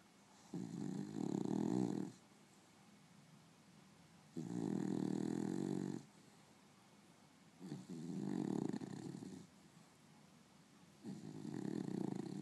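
Beagle snoring in her sleep: four long, even snores, one about every three and a half seconds.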